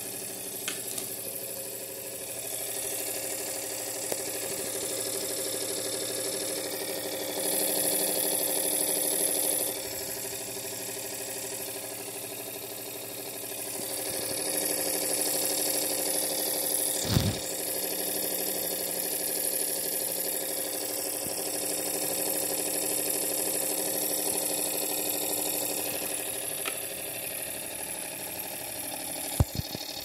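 Small electric motor of a Piko Sonnette toy washing machine running steadily, turning the drum through its drive with an even hum. A single knock about seventeen seconds in and a couple of clicks near the end.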